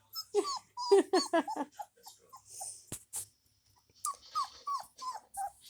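German Shepherd puppy whining: short, high whimpers that fall in pitch, a run of them repeating about once a second near the end.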